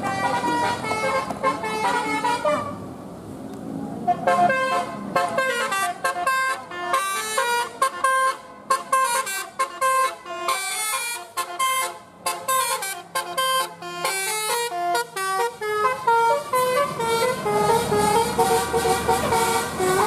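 Tour bus telolet horn, a set of roof-mounted air-horn trumpets sounded in quick sequence, playing a fast tune of short notes that step up and down in pitch, with a brief pause about three seconds in. Near the end the notes give way to a longer wavering horn tone.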